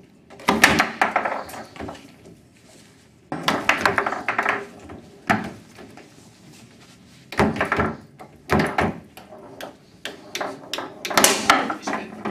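Foosball table in fast play: clusters of sharp knocks and clacks as the ball is struck by the plastic players and the rods are slammed, with short lulls between the flurries.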